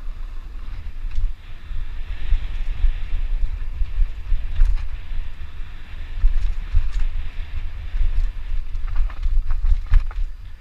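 Wind buffeting the microphone of a downhill mountain bike's rider camera as it descends a rough trail, with steady tyre and trail hiss and a few sharp clattering knocks from the bike over bumps.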